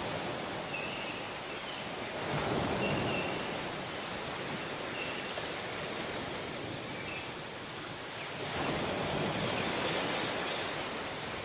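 Steady rushing water, swelling louder about two seconds in and again near the end, with a few faint short high chirps.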